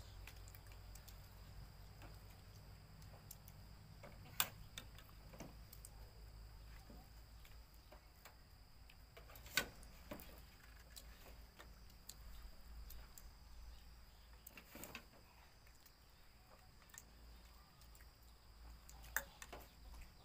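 Quiet mealtime sounds: spoons and forks now and then clinking against ceramic bowls and plates, with four sharper clinks spread a few seconds apart.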